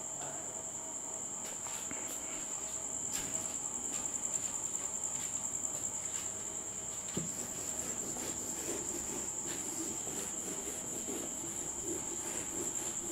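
A steady high-pitched cricket trill. In the second half comes the soft scrubbing of a duster being wiped across a whiteboard.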